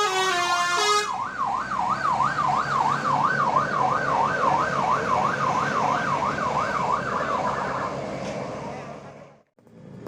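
A tour bus's Basuri musical horn plays a few stepped melody notes, then switches to a fast up-and-down siren warble of about two and a half sweeps a second. The warble stops about seven and a half seconds in, and the sound fades out near the end.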